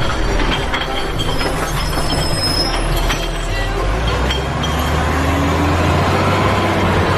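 Plastic toy trucks' wheels rolling over concrete paving stones as the trucks are towed in a line: a steady, rough rumble with scattered clicks and clatter.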